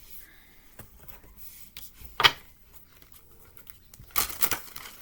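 Cards being handled: scattered soft rustles and clicks, a single sharp snap about two seconds in, and a quick cluster of crisp rustles near the end.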